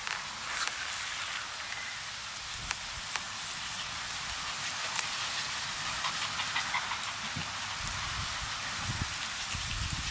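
Small dogs' paws pattering and rustling through grass as they run and play, over a steady outdoor hiss, with a few soft low thumps near the end.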